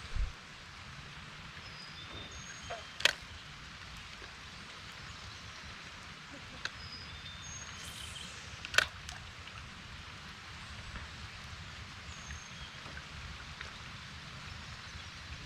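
Quiet outdoor background with a steady hiss, broken by two sharp clicks about three and nine seconds in and a few short high chirps.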